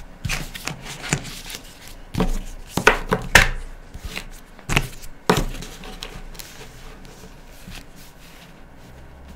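Plastic Spotliner highlighter marker pens being picked up and set down on paper and table: a string of light knocks and clacks, then quieter handling near the end.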